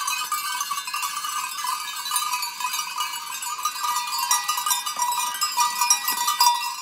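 Bells on a herd of goats jingling and clanking without pause as the goats move about, many small bells ringing over one another.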